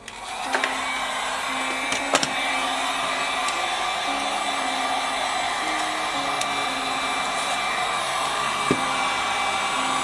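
Heat gun switching on at the start and then blowing steadily: an even rush of air with a thin steady whine. The hot air is being played over a cracked iPad 3 screen to shrink the packing tape on the glass and soften the screen adhesive.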